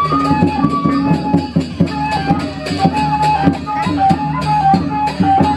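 Traditional music of the kind that accompanies peresean: a flute melody of held, stepping notes over fast, dense drum and cymbal strikes.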